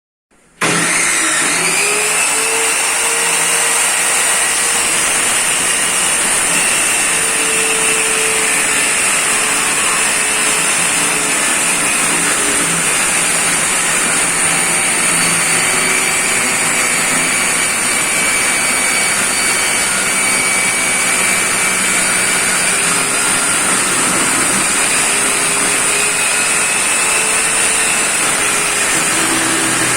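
TOTAL circular saw's electric motor switching on and spinning up with a rising whine about half a second in, then running steadily at full speed with a high, constant whine.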